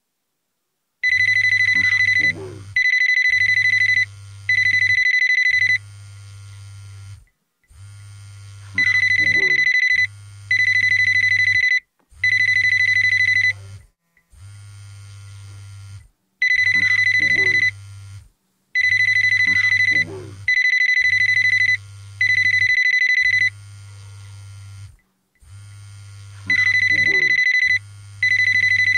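Mobile phone ringtone: loud, steady high electronic beeps in runs of three, over a low buzz and with a falling tone in each run. The pattern starts about a second in and repeats about every seven to eight seconds.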